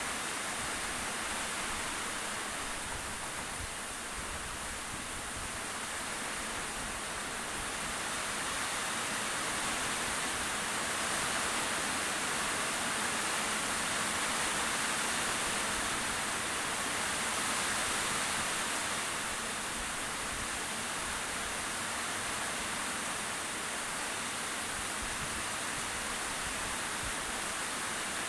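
Steady hissing, rushing noise that swells slightly in the middle and eases again.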